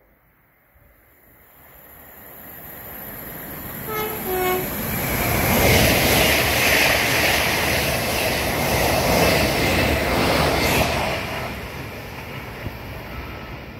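A train approaching and passing, sounding a two-tone horn about four seconds in: two short notes, high then low. Its running and rail noise then build to a loud peak and fade away as it goes by.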